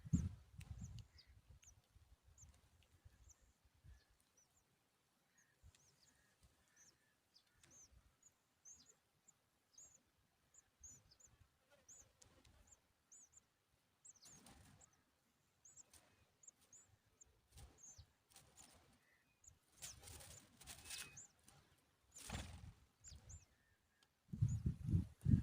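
Faint, high-pitched bird chirps, short calls repeated every second or so, with a few brief rustling bursts in the second half.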